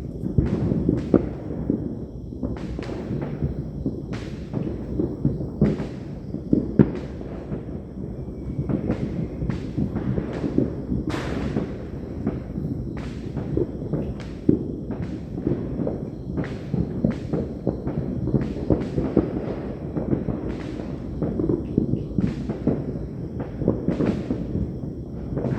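Fireworks and firecrackers going off in an irregular string of sharp cracks, roughly one or two a second, over a continuous low rumble of further explosions.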